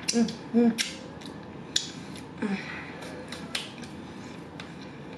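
Close-miked eating sounds: fingers being licked and sucked, then wet lip smacks and mouth clicks while chewing. There are two short "mm" hums near the start and another brief hum about halfway through.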